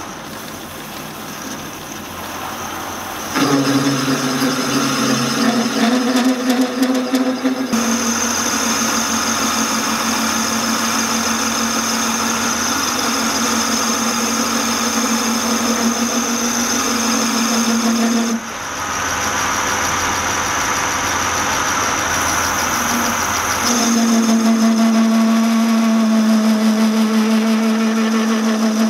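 Metal-turning lathe running, the chuck spinning with a steady hum and gear whine. The sound steps up louder about three seconds in and changes in pitch a few more times.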